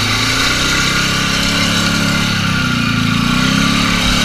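ATV engine running under load as the machine pushes through a deep mud-and-water hole, its pitch rising and falling back a little past the middle, with muddy water churning around the front of the machine.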